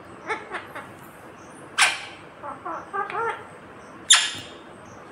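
Rose-ringed (Indian ringneck) parakeet giving short soft chattering calls, broken by two loud sharp screeches, one about two seconds in and one about four seconds in.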